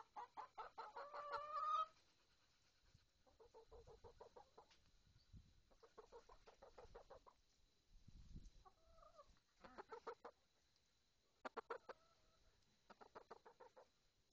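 Hens clucking close by in several runs of quick, repeated clucks with quiet gaps between them. A louder drawn-out call rises in pitch and breaks off suddenly just under two seconds in.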